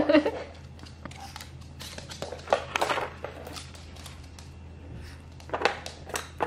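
Hard plastic pieces of a Trixie Flip Board dog puzzle clicking and clattering as a small dog noses and paws at them, in a cluster of clicks about two and a half seconds in and another near the end, over a faint steady low hum.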